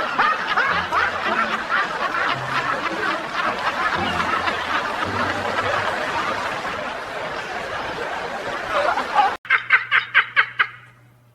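A group of people laughing together, many laughs overlapping, for about nine seconds. After a sudden break, a single voice lets out a quick "ha-ha-ha" run of about eight laughs that fades away.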